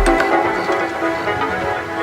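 Background electronic music: a driving kick-drum beat stops at the start, leaving sustained synth chords.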